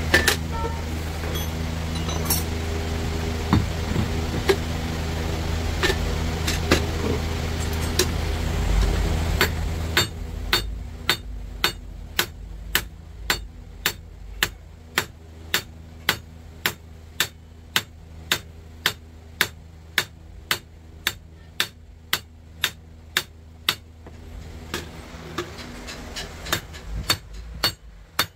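Hammer striking metal in a steady rhythm of sharp blows, about two a second. For the first ten seconds a machine hums steadily underneath with scattered clicks, then the hum drops away and only the strikes remain.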